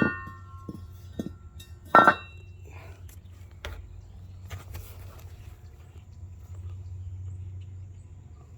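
Ringing metal clanks as the lift block is worked out from between the leaf spring and the axle: two sharp clanks about two seconds apart, with a few lighter knocks between them and one more a little later.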